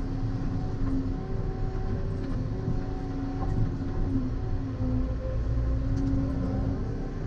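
Volvo EC140EL excavator heard from inside its cab: the diesel engine and hydraulics run steadily with a low rumble and a hum that wavers in pitch as the boom and bucket are worked.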